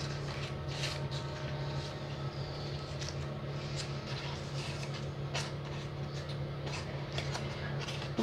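Faint rustling and crinkling of baking paper and pastry as hands fold the pastry edges over a tart in a ceramic dish, over a steady low hum.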